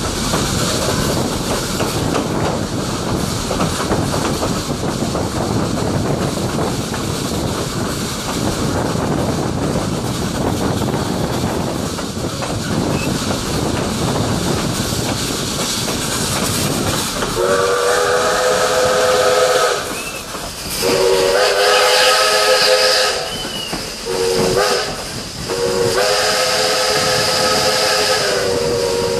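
Steam locomotive whistle blown in the grade-crossing pattern, long, long, short, long, the last blast still sounding at the end, over the steady rumble and rail noise of a passenger coach rolling behind the 1927 ALCO-built Robert Dollar Co. No. 3. The train runs for most of the time with only the rolling noise before the whistle starts.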